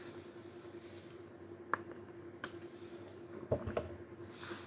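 Quiet room tone: a faint steady hum with a few soft clicks.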